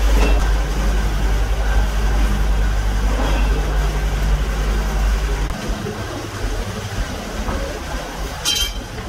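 Steady low machinery rumble that drops away about halfway through. Near the end comes a single sharp metallic clink with a short ring, as a metal tool strikes the steel moulding flask.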